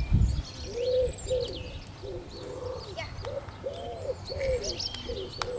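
Doves cooing, a string of short rounded coos repeated over and over, with small birds chirping higher up. A thump right at the start.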